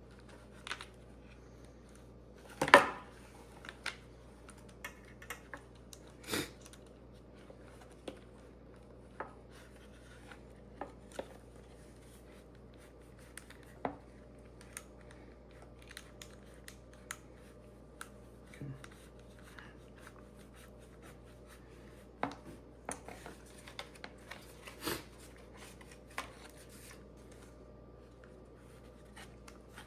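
Scattered small clicks, knocks and light scraping of metal on plastic as a 10mm bolt and washer are worked by hand through a tow strap and spacer into a threaded block in a motorcycle's plastic rear subframe. The two sharpest knocks come a little under 3 s in and at about 6 s.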